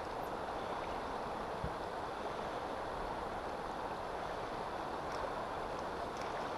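Steady rushing of river water flowing past the inflatable boat.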